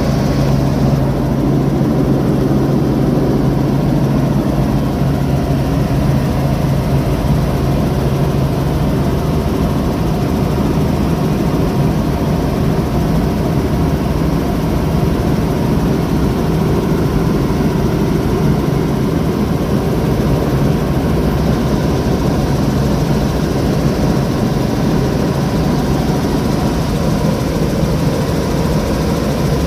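Robinson R44 Raven II helicopter in flight, heard inside the cabin: its six-cylinder Lycoming piston engine and rotors running with a loud, steady noise.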